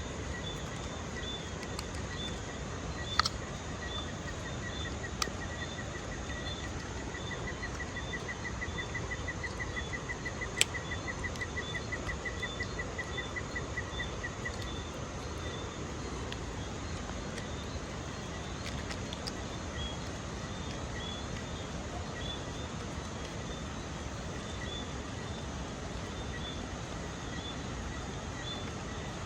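Steady outdoor background noise with a faint, even chirping that repeats throughout. A quicker, denser run of high chirps goes from about five seconds in to about fourteen seconds in, and a few sharp clicks fall in the first half.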